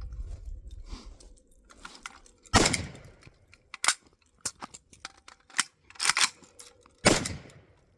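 Two rifle shots from an AK63F in 7.62×39, about four and a half seconds apart, with a run of metallic clicks and clacks between them as the magazine is changed and the action worked. The rifle is cycling reliably.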